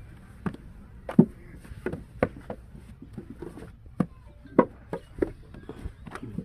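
Wet clay being slapped and packed by hand into a wooden brick mould and the mould knocked against the ground: about ten short, sharp thuds and slaps at uneven intervals, the loudest a little over a second in.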